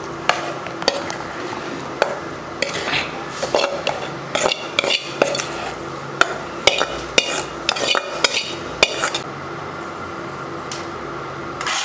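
A steel spoon scraping and clinking against a steel pan and a steel mixer-grinder jar as cooked tomato and onion are scooped into the jar: repeated sharp clinks that stop about nine seconds in.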